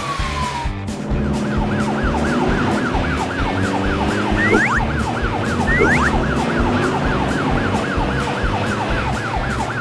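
Cartoon police-car siren in a fast warble, rising and falling about three to four times a second, over background music with a steady beat. A couple of short upward whistles cut in about halfway.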